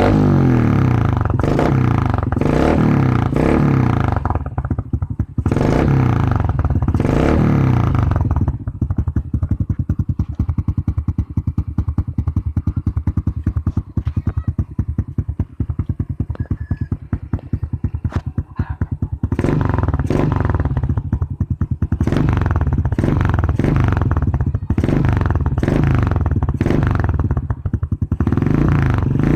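Kawasaki Fury 125 motorcycle engine through a Taikom aftermarket exhaust packed half with steel wool. It is revved in repeated short blips, drops to idle about 8 seconds in, and is blipped again from about 19 seconds in.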